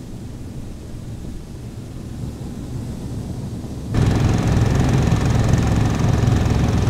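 Engine of a Snowdog tracked motor sled running steadily while travelling over lake ice. It is low and muffled at first, then suddenly much louder and closer about four seconds in.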